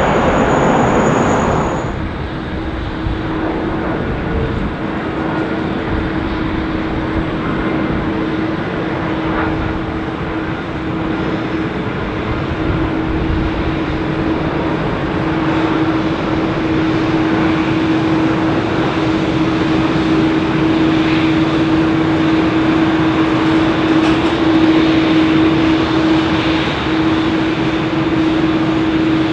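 Jet airliner's engines on approach to land, a steady drone of engine noise with a steady hum that grows slightly louder toward the end. A louder rush of jet noise in the first two seconds cuts off suddenly.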